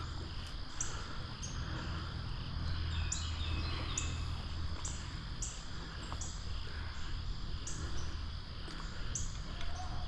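Crickets chirping outdoors: short high chirps repeat about once or twice a second over a steady high buzz, with a low steady rumble underneath.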